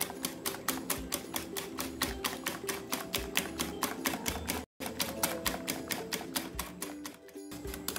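Wire whisk beating a creamy yogurt sauce in a glass bowl, the wires clicking against the glass about five times a second. The clicking breaks off for an instant a little past halfway, then carries on.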